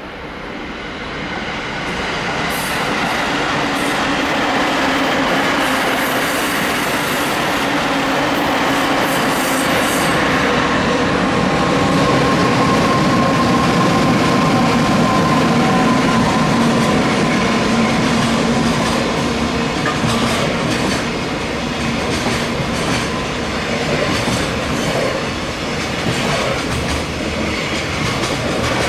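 A train running past, its wheels clattering over the rail joints with some wheel squeal. It builds in loudness over the first few seconds, then holds steady.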